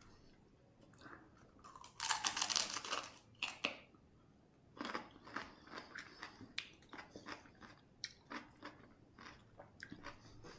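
A person bites into crunchy cucumber boat, with one loud crunch about two seconds in, then chews it with short wet crunches about twice a second.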